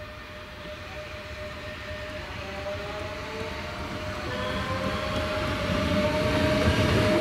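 A Renfe electric train approaches, its rumble and a steady whining tone growing louder throughout.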